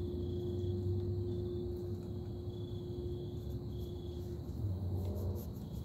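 Distant industrial equipment at the Casting Solutions foundry running with a steady low hum and a steady higher tone. The higher tone drops out about four and a half seconds in and is replaced briefly by shifting tones. The uploader puts the noise down to failing equipment.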